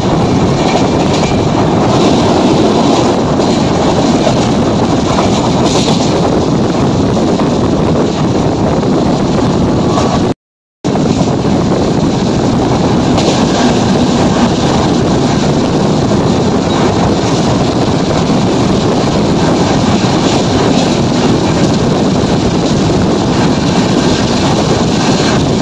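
Loud steady running noise of an express passenger train moving at speed, wheels on rails and rushing air heard from a coach window, with wind buffeting the microphone. The sound cuts out for a moment about ten seconds in.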